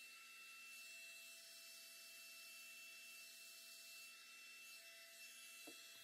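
Faint, steady whir of a handheld hair dryer blowing on the hairline, drying lace-wig glue until it turns clear.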